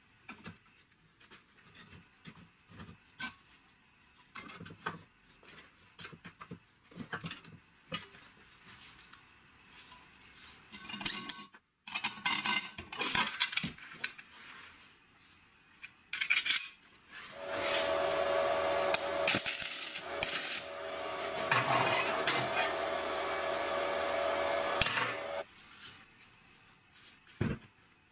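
Sheet-metal parts clicking, clinking and scraping as they are handled, then a power tool runs steadily for about eight seconds with a steady whine, stopping about three seconds before the end.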